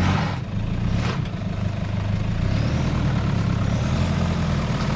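Four-wheel-drive vehicle's engine running steadily at low revs, with two brief rushing noises near the start and about a second in.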